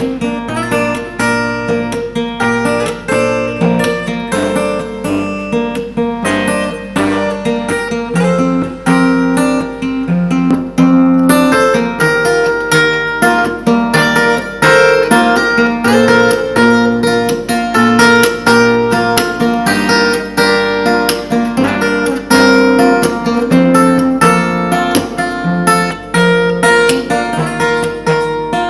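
Instrumental music with a strummed and plucked acoustic guitar and a repeating bass line, played back at full volume through a small Bluetooth speaker.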